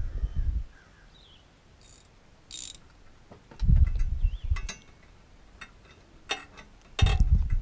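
Socket ratchet clicking as it is worked on a tight mower blade bolt under a Husqvarna garden tractor's deck, with three loud low thuds: at the start, in the middle and near the end.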